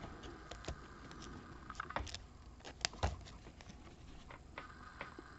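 Baseball cards in clear plastic sleeves being handled and shuffled by hand: soft plastic rustles and small clicks, with a few sharper taps around two and three seconds in.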